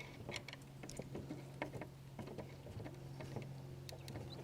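Faint, scattered light clicks and taps over a low steady hum.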